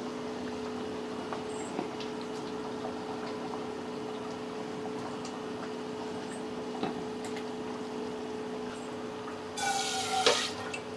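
A pot of fish curry simmering, faint bubbling over a steady low hum, with a brief clatter of steel vessels near the end.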